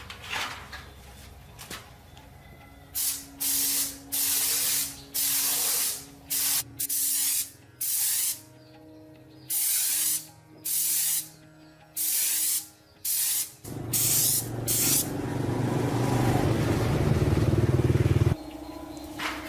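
A series of about a dozen short hissing spray bursts, each under a second, followed near the end by one longer, louder hiss with a low rumble lasting about four seconds.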